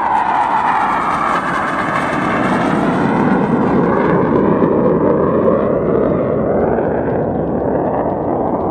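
Military jet passing low overhead. Its engine roar falls in pitch as it goes by, is loudest around the middle, and fades slowly as it moves away.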